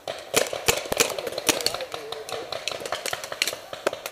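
Paintball markers firing: a quick, irregular string of sharp pops, some much louder than others.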